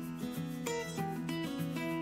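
Background instrumental music with a steady run of plucked notes.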